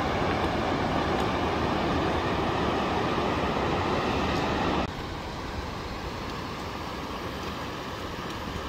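Steady rush of a mountain creek cascading over rocks. About five seconds in it cuts off suddenly to a quieter, steady rush of water.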